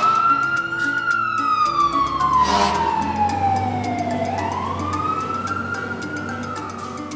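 Fire engine siren wailing: its pitch falls slowly, rises again a little after halfway, then cuts off at the end. Background music plays under it.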